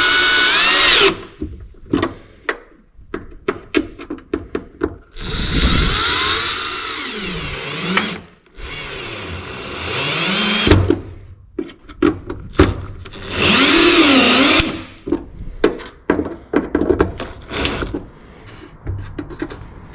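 Power drill running in four bursts, its motor pitch rising and wavering as it bites, with short clicks and knocks of handling between the bursts. This is typical of drilling holes or driving screws to mount a circuit breaker.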